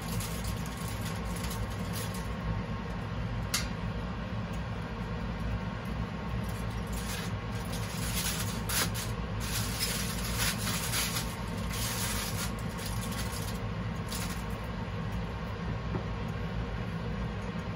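Aluminium foil crinkling and rustling as it is handled, most busily in the middle, with a single sharp click early on, over a steady low hum.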